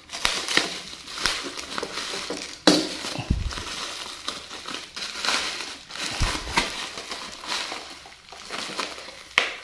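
Black plastic packaging, bubble-wrap style, crinkling and rustling as it is pulled and torn open by hand, with a sharp crack about a quarter of the way in and a few dull bumps from the package being handled.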